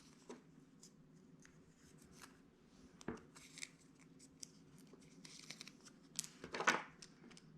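Faint rustling and light clicks of stickers being peeled from a sheet and pressed onto a small plastic toy, in scattered short bursts.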